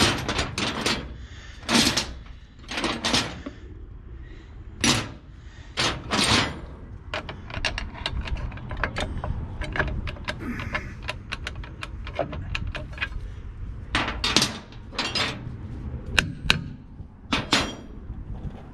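Irregular metallic clanks, clicks and short scrapes of rear drum-brake parts (brake shoes and their hardware) being handled and fitted onto the backing plate.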